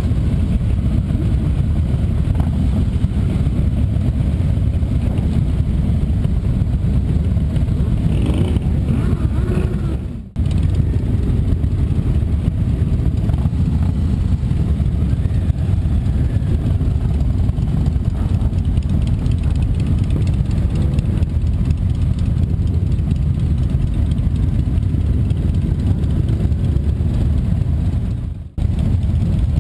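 Motorcycle engine running under a heavy, steady low rumble of wind on the microphone while riding. The sound drops out abruptly and briefly twice, about ten seconds in and near the end.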